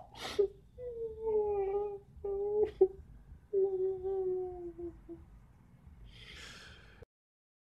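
A man's voice humming a few long, steady notes in three short phrases, each gliding slightly down in pitch, followed near the end by a brief breathy hiss.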